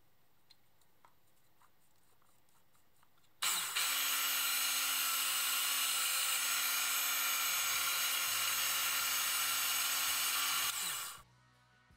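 Small bench drill press switched on about three and a half seconds in, its motor running at a steady high whine for about seven seconds while a fine bit drills into a small brass part, then switched off and spinning down with falling pitch.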